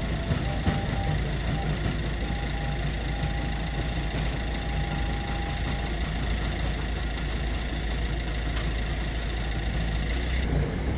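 Level-crossing barrier booms rising, with a thin steady motor whine that stops about six seconds in, over a steady low rumble.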